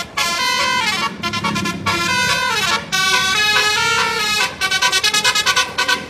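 Bus's 'telolet' multi-tone musical air horn of the basuri type playing a tune of stepping notes, with short breaks, ending in a fast stuttering run of toots near the end.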